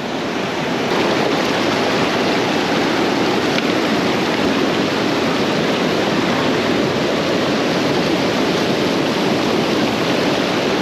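A fast-flowing Highland river rushing loudly and steadily over the stepping stones close by. The river is running high after the night's heavy rain.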